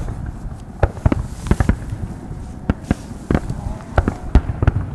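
Aerial firework shells bursting: a rapid, irregular series of sharp bangs, a dozen or so, the loudest near the end.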